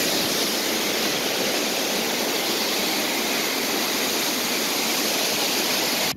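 Waterfall heard close by: a steady, loud rush of falling water that cuts off suddenly at the very end.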